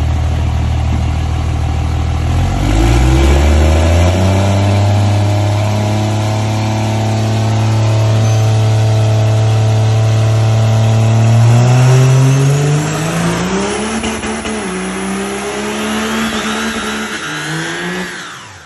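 A pickup truck's engine runs at idle, then revs up about two and a half seconds in and holds at high revs while the rear tires spin in a stationary burnout. This is a test of the differential lock, and both rear wheels spin. The revs climb again about twelve seconds in, rise and fall, then drop away at the end.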